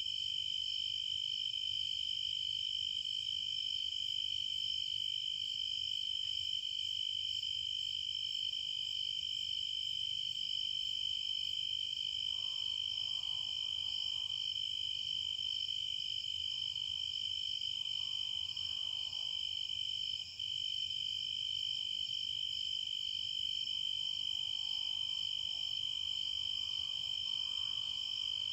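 Steady insect chorus, crickets trilling without a break, with a momentary drop about twenty seconds in.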